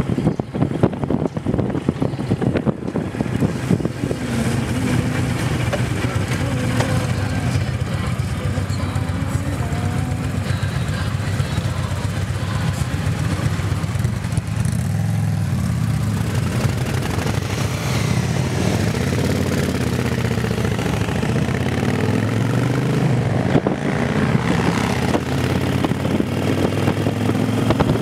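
Touring motorcycle engines running on the move, with wind noise on the microphone in the first few seconds. Near the middle the engine note drops as the bikes slow to a stop, then rises and falls as they pull away again.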